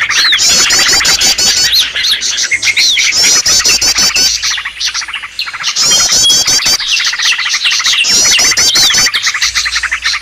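Recorded calls of several small songbirds mixed together as a bird lure: dense overlapping chirps and whistles, with a rapid, very high trill that comes back several times.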